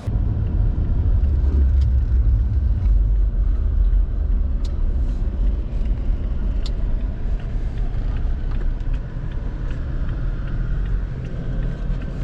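A car being driven: a steady, loud low rumble of engine and road noise, with a few faint clicks.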